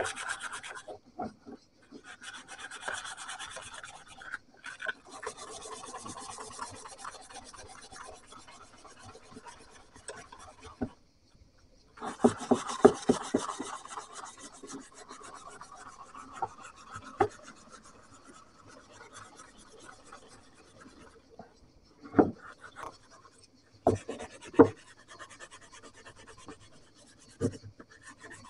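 Hand abrading strokes on the old cleaver, a steady rubbing scrape kept up in spells of several seconds with short pauses between. A few sharp knocks come in the last third.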